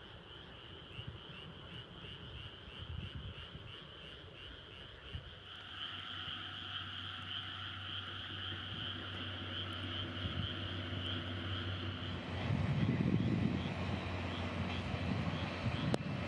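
A DE10 diesel-hydraulic locomotive hauling a train approaches, its engine drone building steadily over a pulsing animal chorus. About twelve seconds in, a louder low rumble of the passing train takes over.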